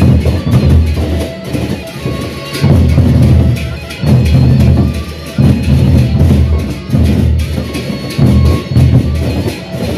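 Sasak gendang beleq ensemble playing: large double-headed barrel drums beaten with sticks in loud clusters of strokes about once a second, with ringing metal percussion sounding above them.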